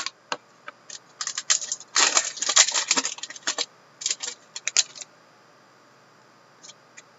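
Hockey card pack wrapper crackling as it is torn open by hand, then the cards being flicked through. There is a dense run of crackles about two to three and a half seconds in, and a few more clicks around four to five seconds.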